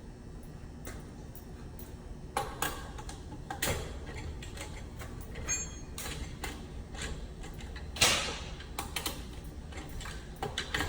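Hand tools and metal parts being handled at an electrical panel: scattered clicks, taps and knocks, with the loudest clatter about eight seconds in.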